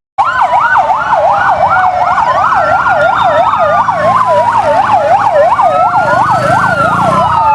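Fire truck sirens: a fast yelp rising and falling about three times a second, overlaid with a slower wail that climbs and falls, over a low engine rumble.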